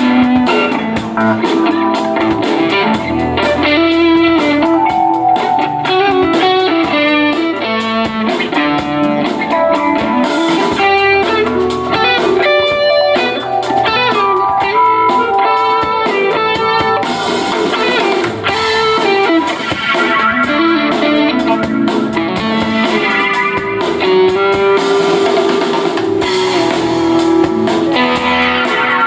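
A band playing: electric guitar picking a busy line of notes over a drum kit.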